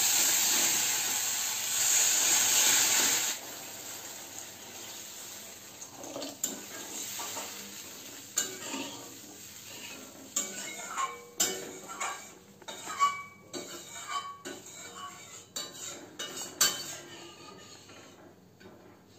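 Water hitting hot, oil-fried curry masala in a metal kadai sizzles loudly for about three seconds and then dies down. After that a spatula stirs and scrapes the pan, with scattered clinks and knocks against the metal.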